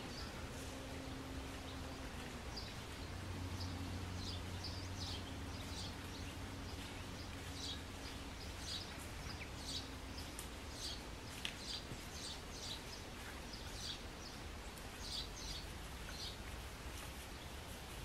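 Woodland ambience: birds chirping, many short high chirps scattered through a faint steady background noise.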